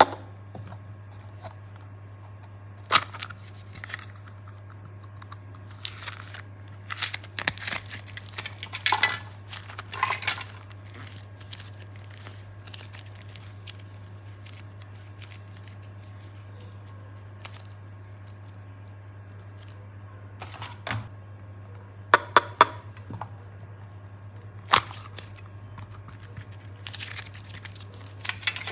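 Slime and clay being handled by hand: bouts of crinkling and tearing, with a few sharp clicks, over a steady low hum.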